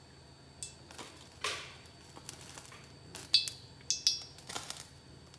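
Several scattered light clinks and knocks of metal kitchenware, some with a short metallic ring, the loudest a little past halfway, over a faint steady hum.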